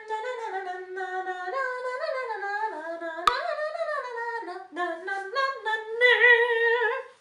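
A woman singing a cappella, one unaccompanied voice whose pitch rises and falls through a tune. There is a short sharp click about three seconds in, and the singing cuts off suddenly at the end.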